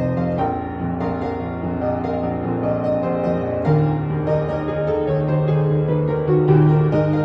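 Solo piano playing a pop-song arrangement: a melody and chords over long held bass notes.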